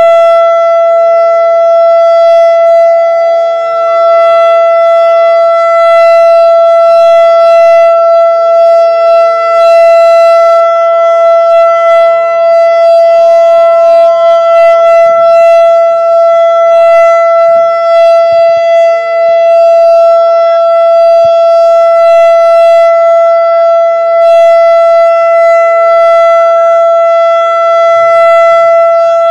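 ASC Quadren Q-3200 electronic outdoor warning siren sounding its Alert signal: one loud, steady tone held at a single pitch without rising or falling.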